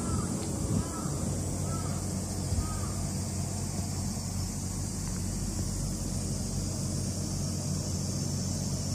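Steady electric hum with an airy hiss from the snow leopard enclosure's spot cooler, a portable air-conditioning unit, running. A few short bird chirps in the first three seconds.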